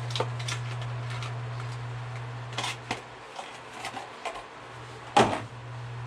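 Scattered small clicks and rattles of crimp terminals being handled and picked out, with one louder knock about five seconds in, over a low hum that drops away briefly in the middle.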